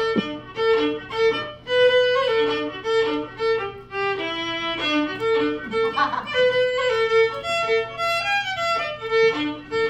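Solo fiddle played live, a quick tune of short bowed notes.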